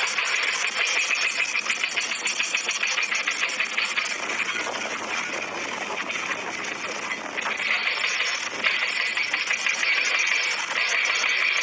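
Toy excavator making a steady, rapidly chattering engine-like buzz that dips a little about halfway through and then picks up again.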